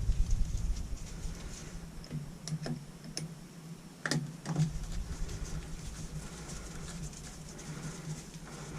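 Scattered light clicks and taps of small plastic and metal parts being handled and fitted by hand, the sharpest about four seconds in, over a faint steady hum.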